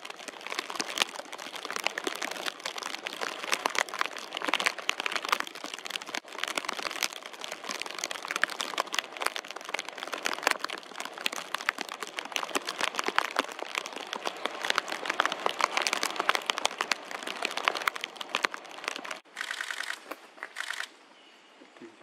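Dense, continuous crackling and crinkling close to the microphone, uneven in loudness, giving way about 19 seconds in to a short, steadier hiss before it drops off.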